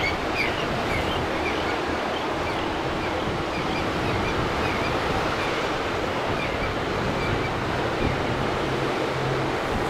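Steady wash of surf and wind at an ocean inlet, an even roar with no break.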